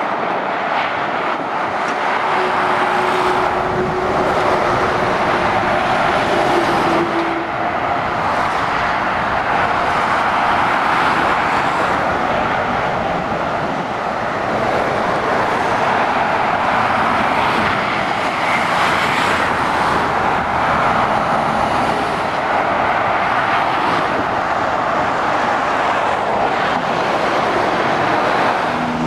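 Steady motorway traffic noise from lorries and cars passing below: a continuous tyre roar mixed with diesel engine hum.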